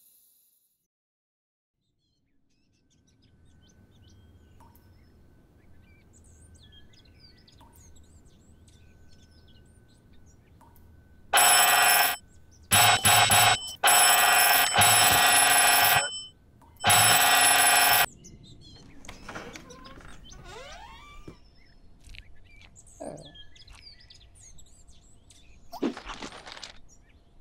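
A bell ringing loudly in about four bursts, stopping after roughly seven seconds, with faint chirps after it.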